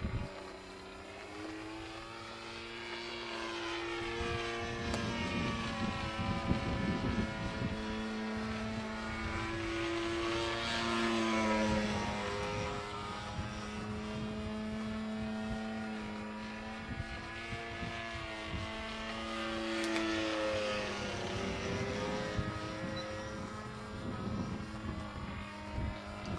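Propeller engine of a Zero fighter droning as the plane flies overhead. Its tone wavers and gets louder on passes about ten and twenty seconds in, dropping in pitch as it goes by.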